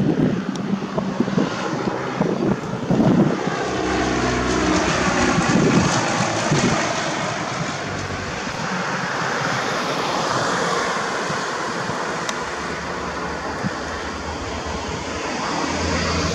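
Piper PA-28-161 Warrior II light aircraft, its four-cylinder Lycoming engine and propeller droning as the plane flies past on its landing approach. Gusts of wind buffet the microphone.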